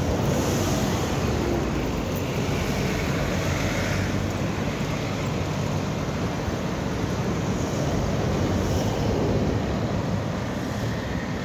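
Steady road traffic noise from cars, vans and a jeepney driving past on a multi-lane road, with one car passing close, a little louder, shortly before the end.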